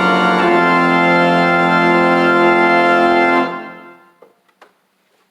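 Church organ holding the hymn's final chords: a chord change about half a second in, then a full chord held and released, ringing away in the room's reverberation. A few faint clicks follow near the end.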